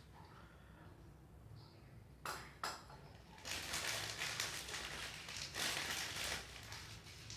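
Kitchen handling sounds: two sharp clicks a moment apart, then about three seconds of dense crackling and scraping.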